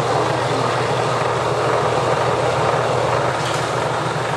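A kitchen machine's electric motor running steadily, with a low hum under a loud rushing whir.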